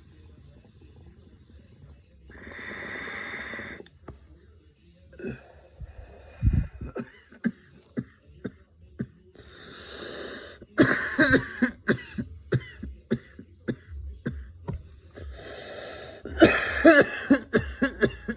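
Long breaths drawn through a Puffco Peak Pro e-rig fitted with a glass joystick cap, then two bouts of hard, repeated coughing from the hit, the first starting about eleven seconds in and the second near the end.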